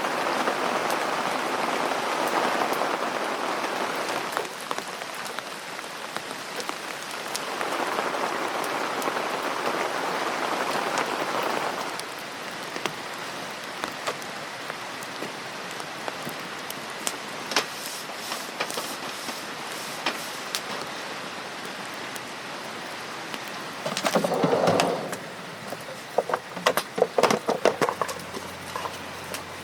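Rain falling steadily, louder in two swells during the first twelve seconds. Near the end there is a short burst of rustling, then a run of sharp knocks and clicks.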